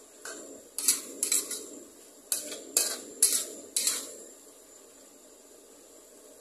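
Metal spatula clanking and scraping against a metal wok while stir-frying mussels with basil: about eight sharp strikes in the first four seconds, then only a faint low hiss from the pan.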